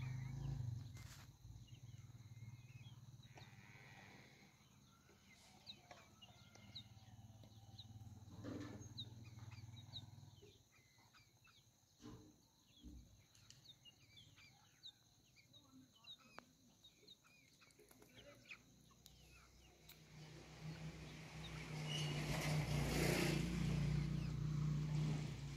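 A flock of hens foraging on gravel: scattered clucks and pecking clicks, with many short high chirps. About 20 seconds in, a louder rushing noise rises and dominates for several seconds.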